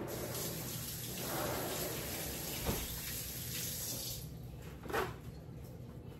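Water running from a kitchen tap, shut off about four seconds in, with two knocks: one partway through and a louder one about a second after the water stops.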